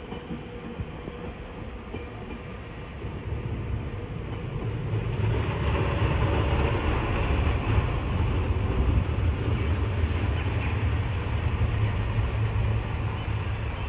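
Arriva Alstom Coradia LINT diesel railcar running into the station. Its engine rumble and wheel noise grow louder from about four seconds in as it comes alongside the platform.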